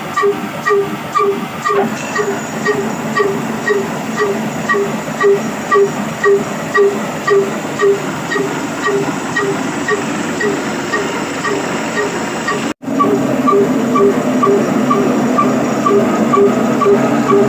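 Old black Ruston-type diesel engine driving a chakki flour mill, running at steady speed with an even exhaust beat about two to three times a second. The sound cuts out for an instant about three-quarters of the way through.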